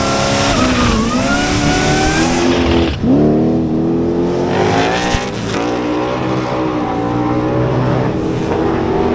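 A street car's engine at full throttle, accelerating hard down a drag strip. The pitch climbs, falls at gear changes about one second and three seconds in, then rises again.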